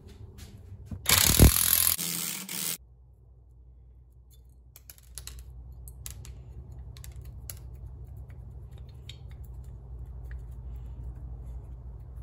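Ball joint press being worked to push a U-joint bearing cap out of a Dana 30 axle stub shaft: a loud rushing burst with a thud about a second in, then scattered metallic clicks over a low steady hum.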